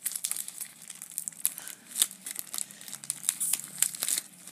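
Black plastic mailer bag crinkling and crackling in irregular bursts as fingers handle it and pick at the sticker on it.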